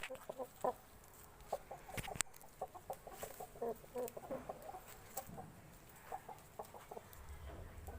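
Aseel chickens clucking, many short low clucks in an uneven run. There is a sharp click about two seconds in.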